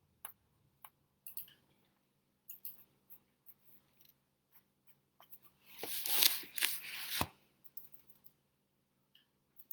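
Pen strokes on paper while drawing: scattered light ticks and scratches, with a louder scratchy rustle about six seconds in.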